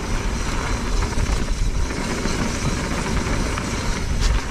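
Mountain bike tyres rolling fast over a loose-gravel trail, with steady wind rumble on the action camera's microphone and a single knock near the end.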